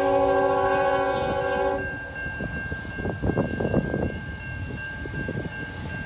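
Air horn of an approaching CN diesel freight locomotive sounding a steady multi-note chord, cutting off about two seconds in. After that, a quieter, uneven rumble.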